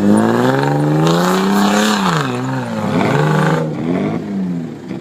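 An off-road 4x4's engine revving hard under load on a hill climb: the pitch rises for about two seconds, drops sharply, surges up and down a few more times, then dies away near the end.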